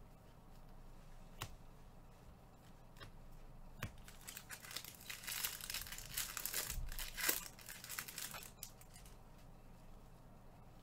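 Foil wrapper of a Bowman baseball card pack being torn open and crinkled: a dense stretch of crackling starting about four seconds in and lasting about four seconds. A few light clicks come before it.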